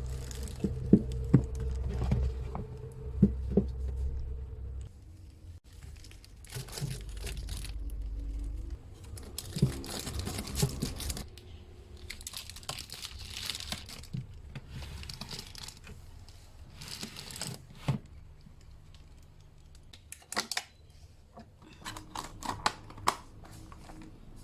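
Plastic packaging crinkling and tearing in repeated stretches, with scattered sharp clicks and knocks as items are handled.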